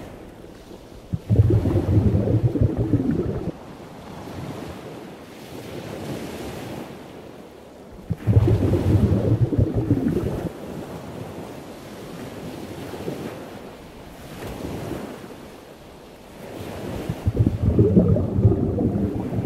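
Ocean surf: waves washing in and drawing back, with three big surges about seven to eight seconds apart and softer swells between them.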